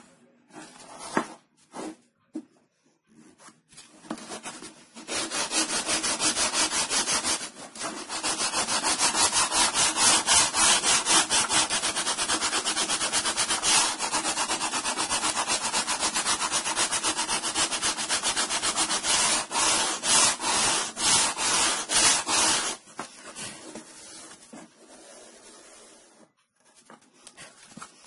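Hand sanding block (sandpaper wrapped round a wooden block) rubbed rapidly back and forth along the edge of a fibreboard panel, a steady scratchy rasp of even strokes that starts about five seconds in and stops a few seconds before the end. A few light knocks of the block and board being picked up come before it.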